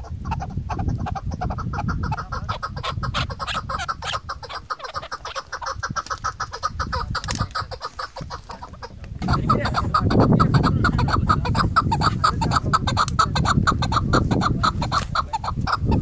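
A caged female chukar partridge calling in a rapid run of short clucking notes, several a second. The notes break off for about a second near the middle, then resume louder, over a low rumble.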